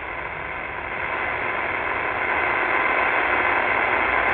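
Qodosen SR-286 portable radio's speaker hissing with static on a vacant AM frequency (520 kHz), the hiss coming on suddenly and growing louder over the first two seconds or so as the volume is turned up. This unit is the worst of those tested for digital hash noise from its display, which is mixed into the hiss.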